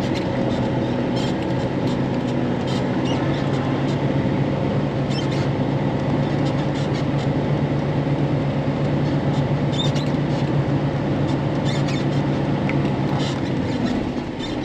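Vehicle driving at steady speed, heard from inside: a continuous engine hum and road noise, with scattered light rattles and clicks. The sound cuts off abruptly near the end.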